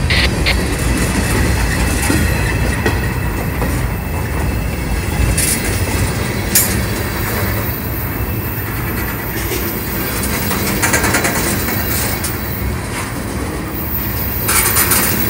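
Freight cars (open hoppers, then tank cars) rolling past close by: a steady rumble of wheels on rail, broken by sharp clicks of wheels over rail joints. A high wheel squeal comes in near the end.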